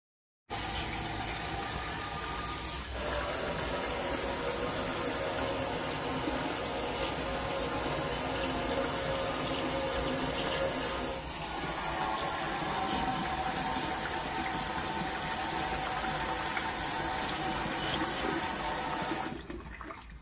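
Kitchen tap running a steady stream into a stainless steel sink, the water draining freely rather than pooling because the clog has cleared. The tap shuts off near the end, leaving a much quieter trickle.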